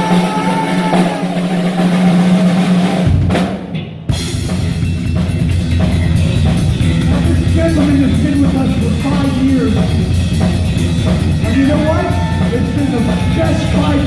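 Heavy metal band playing live, loud: a held note rings for about three seconds, there is a brief break, and then the full band with a pounding drum kit comes in about four seconds in, opening the song.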